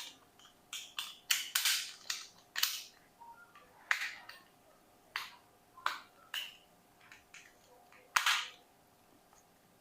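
Sharp plastic clicks and snaps, about a dozen at irregular intervals, from a handheld plastic remote control being handled; the loudest come about four and eight seconds in.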